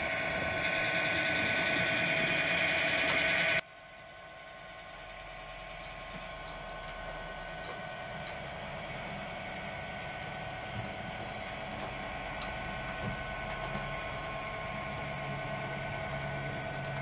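DCC sound decoder in an OO gauge model Class 66 diesel locomotive, playing a steady diesel engine sound through the model's small speaker. About three and a half seconds in, the sound cuts off abruptly and comes back much quieter, then grows steadily louder.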